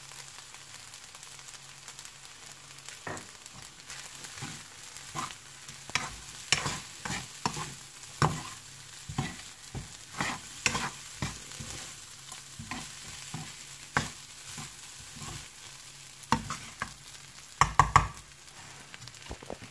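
Fried rice being stir-fried in a wok: a metal spatula scrapes and tosses the rice in irregular strokes over a faint, steady sizzle, with a cluster of louder knocks near the end.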